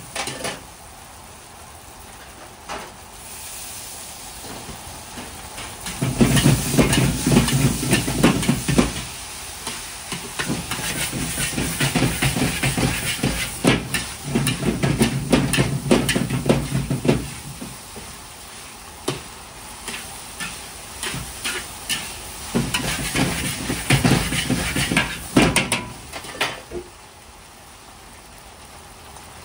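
Fried rice stir-frying in a black iron wok: a steady sizzle, with a metal ladle scraping and clattering against the wok in three spells of fast stirring and tossing, each with a low rumble. It quietens to a softer sizzle near the end.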